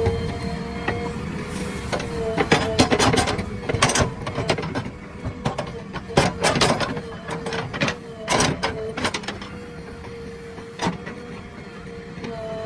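Earthmoving machine at work: its engine and hydraulics run with a steady whine, broken by clusters of sharp metal clanks and knocks from the working gear.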